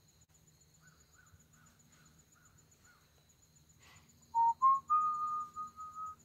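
A man whistling a few notes in the last two seconds: two short notes stepping up in pitch, then a longer held note broken into several pieces.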